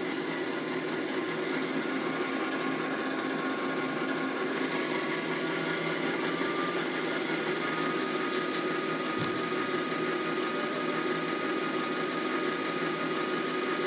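Kato sound box playing a recorded GE ES44 diesel locomotive engine sound through its speaker, running steadily with a faint whine that rises slightly in pitch.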